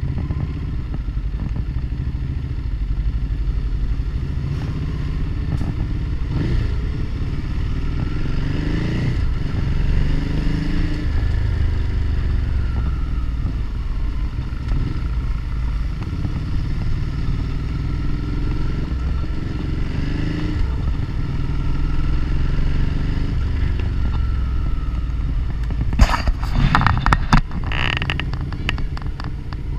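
Motorcycle engine running while riding, its pitch rising and falling several times with the throttle. Near the end comes a short burst of knocks and rattles.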